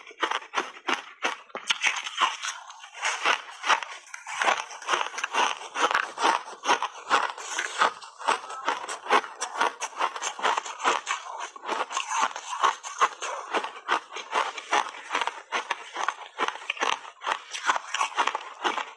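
Crunchy blueberry block ice being bitten and chewed, giving dense, irregular crunching and cracking throughout.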